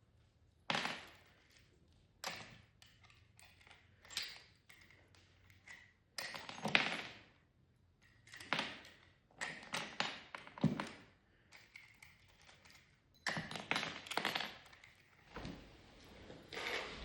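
A series of irregular knocks and thuds, about a dozen, some followed by brief scraping or sliding sounds.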